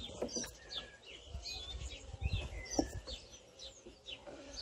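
Small birds chirping and singing: many short, quick high notes, some sliding up or down, scattered throughout, over a low rumble.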